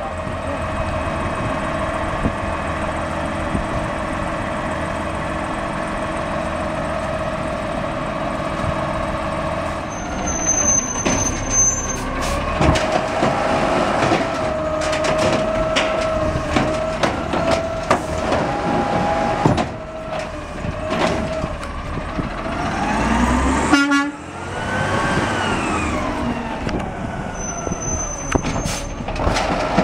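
Automated side-loader garbage trucks working: diesel engines running with a whining hydraulic pump, the whine wavering and gliding up and down as the arm lifts and tips wheeled carts, with knocks and bangs from the carts and the arm.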